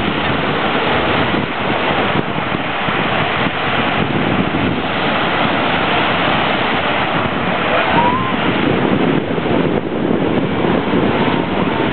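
Sea surf washing steadily onto a sandy shore as small waves break in the shallows, with wind buffeting the microphone.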